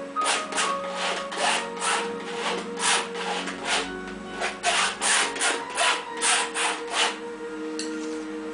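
Paintbrush scrubbing across a stretched canvas in short, repeated strokes, about two or three a second, which stop near the end.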